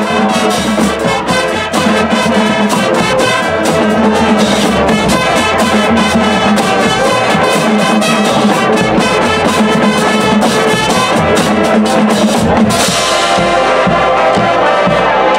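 High school marching band playing: brass over a drumline of snares, tenor drums, bass drums and cymbals, the drums keeping a quick, even beat. Near the end the band hits a big accent with a cymbal crash and holds a chord.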